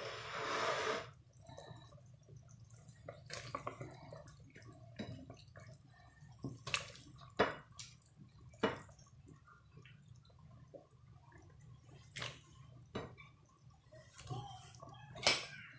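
Pieces of roasted chicken going into a steel pot of boiling meat broth: a splash in the first second, then scattered short knocks and drips, over a faint steady low hum.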